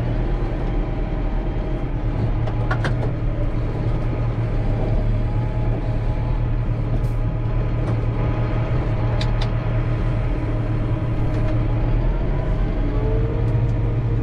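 Tractor engine running steadily under load while pulling a plough, with a few sharp clicks and knocks about 3, 7 and 9.5 seconds in.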